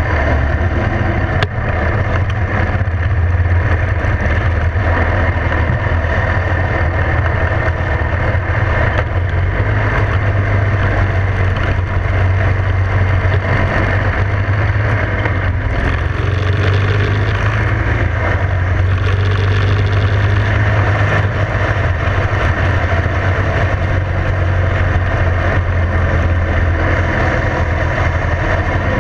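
Motorcycle engine running steadily at cruising speed, heard from a camera on the moving bike, with steady wind rush over it.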